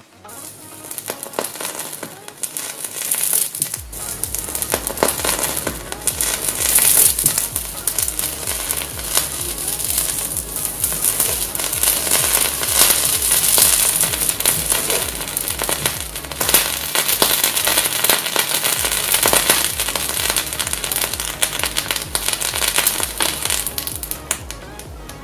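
Crackling and sizzling as a glowing-hot knife melts through a toothpaste tube and the toothpaste boils against the blade. Electronic music with a steady bass beat comes in about four seconds in.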